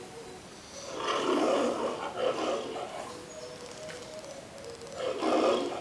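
The MGM lion logo's roar: two roars, a long one starting about a second in and a shorter one near the end.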